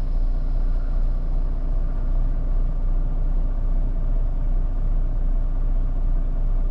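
Steady low rumble of an idling diesel truck engine, heard from inside the cab.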